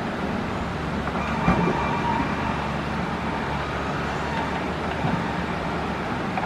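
Caterpillar excavator's diesel engine running steadily under work, with a single knock about a second and a half in. A thin high steady tone sounds over it for a few seconds.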